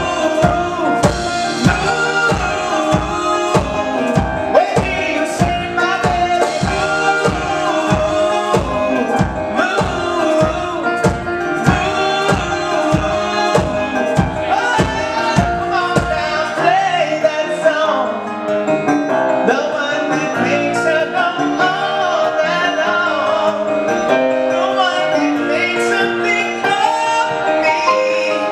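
Live pop-rock band music from acoustic guitar, keyboard and percussion, over a steady low beat of about one and a half strokes a second. About two-thirds of the way through, the beat and the low end drop out, leaving keyboard and guitar.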